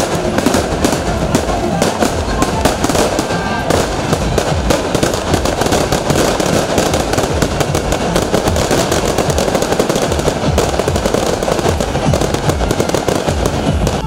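A long string of firecrackers going off: a rapid, unbroken crackle of many pops a second that stops near the end.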